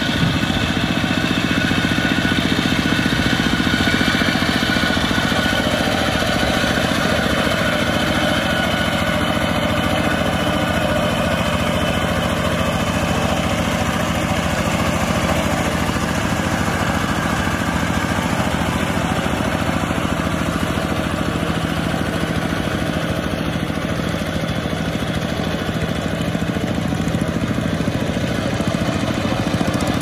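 Single-cylinder diesel engine of a two-wheel walking tractor running steadily under load as it drags a harrow through flooded paddy mud.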